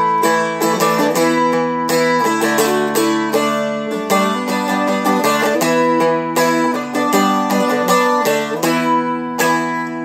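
Seagull Merlin, a four-string dulcimer-style instrument, strummed in a steady rhythm through a chord progression, the chords changing about every two seconds.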